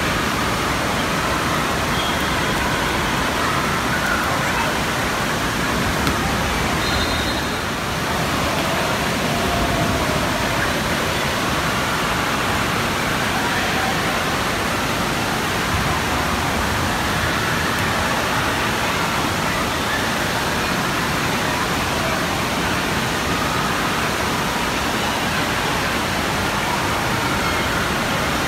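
Steady wash of water noise from an indoor water park's pools and water features, with faint children's voices in the background.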